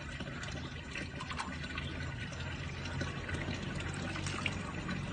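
Water trickling and splashing while a small dog is bathed with water dipped by hand from a bucket.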